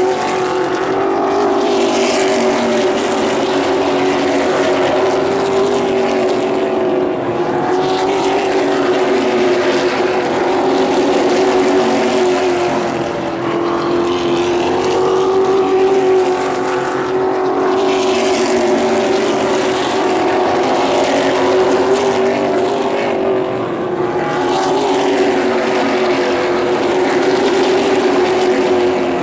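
Stock race cars' engines running in a pack around an oval track: a steady loud drone that swells and fades roughly every five seconds as the cars come past.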